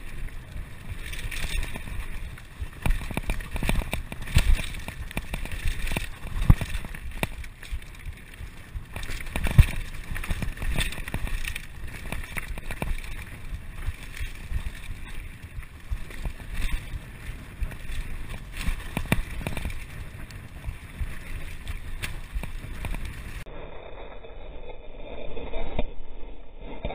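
Mountain bike riding fast down a rough dirt trail: the bike rattles and clunks over bumps, with sharp knocks, the hardest about ten seconds in, and wind on the microphone.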